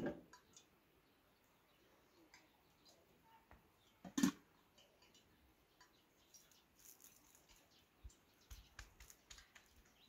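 Faint clinks and knocks of metal cookware being handled: a pot knocks down onto the stove at the start, a sharper knock comes about four seconds in, and a scatter of small clicks and light taps follows near the end.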